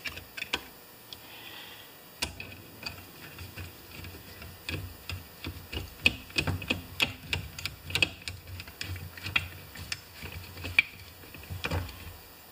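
Screwdriver working a screw tight in the carburetor mounting of a Homelite XP 1020 chainsaw: irregular small metal clicks and ticks as the blade catches and turns in the screw head.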